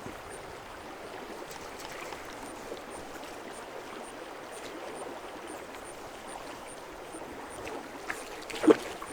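Flowing river water: a steady, even rush of the current, with one short louder sound near the end.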